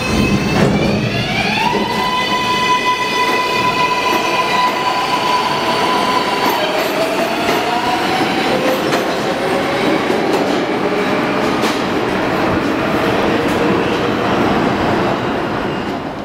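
R142A subway train accelerating out of the station: its propulsion whine rises in pitch over the first couple of seconds and then holds as several steady tones, later shifting lower, over the rumble and clatter of steel wheels on the rails. The sound eases off near the end as the train leaves.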